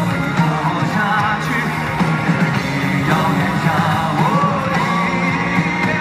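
Male pop-rock vocalist singing live over a band accompaniment, holding a long wavering note in the second half.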